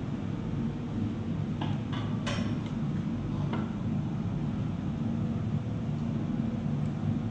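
Steady low roar of a glassblowing furnace's gas burner, with a few light metal clinks a little under two seconds in and once more about three and a half seconds in, as the steel blowpipe knocks on the bench.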